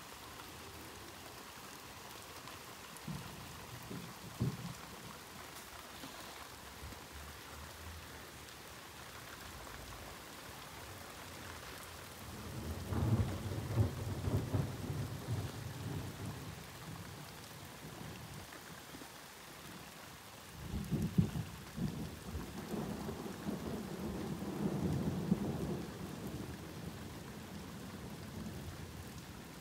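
Steady rain falling, with two long rolls of thunder: the first builds about twelve seconds in and rumbles for several seconds, the second opens with a sharp crack about twenty seconds in and rumbles on for several more.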